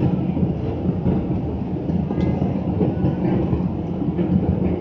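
Steady low rumble of a jet airliner in flight, the engine and airflow noise heard from inside the passenger cabin.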